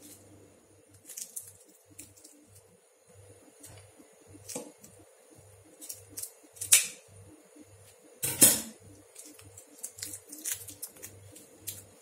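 Scissors snipping through the stems of a bunch of curly parsley, with rustling of the leafy bunch as hands handle it. Short crisp snips and crinkles come at irregular times, two of them much louder in the second half, over a faint steady hum.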